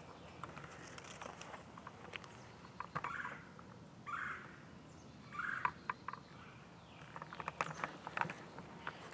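Footsteps crunching and rustling through dry leaf litter, an irregular run of small crackles and scuffs with a few louder leaf-rustling steps in the middle.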